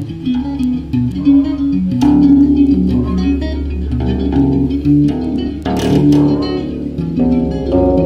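Bass guitar played through a small Oranye practice amplifier: a line of single picked notes over a low held tone, with one brighter strummed stroke about six seconds in.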